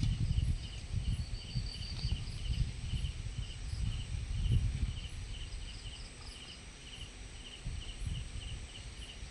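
Crickets chirping in a steady pulse, about two to three chirps a second, with a fainter higher insect trill, over low rustling and thuds from a herd of wild elephants moving through grass; the rustling fades about halfway through.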